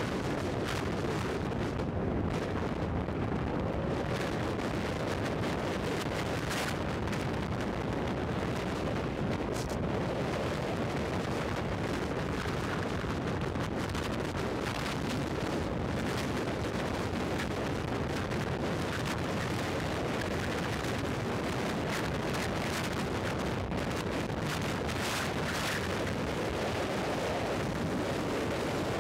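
Steady roar of wind buffeting a motorcycle-mounted action camera's microphone at highway speed, with road noise beneath and brief gusty rustles now and then.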